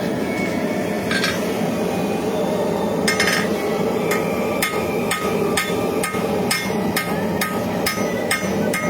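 Blacksmith's hammer striking hot knife steel on an anvil, a single blow then a steady run of about two blows a second from about three seconds in, each with a short metallic ring. A steady rushing noise from the forge runs underneath.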